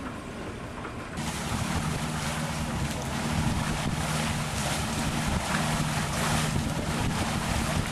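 Wind buffeting the microphone and water rushing past the hull of a small boat under way, over a steady low drone. It comes in suddenly about a second in, after a quieter stretch.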